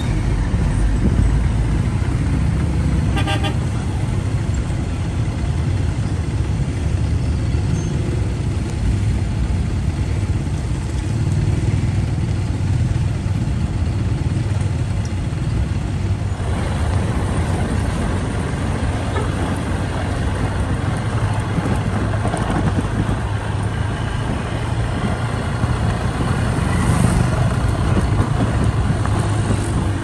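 Road traffic: engines and tyres rumbling steadily, getting louder and hissier about halfway through, with a short vehicle horn toot about three seconds in.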